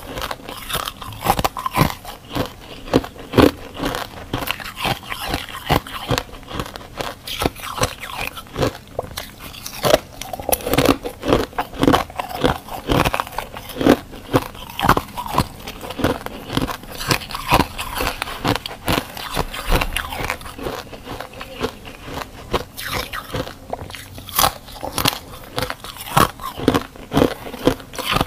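Close-miked biting and chewing of freezer frost and reshaped frozen ice: a continual run of sharp, crisp crunches and crackles, several a second.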